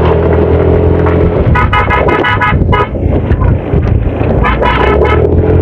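A motor vehicle's engine running steadily, with a horn tooting in short runs of blasts, once about a second and a half in and again near the end.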